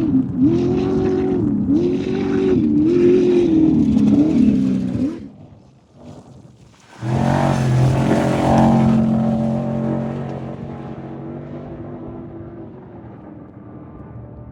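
Off-road race vehicle engine revving up and falling back in four quick surges, then dying away about five seconds in. About seven seconds in, a second race engine starts abruptly at full loudness and fades steadily as it goes away.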